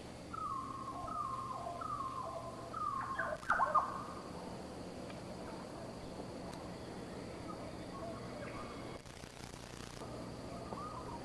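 A bird calling: a run of about five short whistled notes, each stepping lower than the last, over the first four seconds, the last ones loudest. After that, a quieter natural background with a few faint calls.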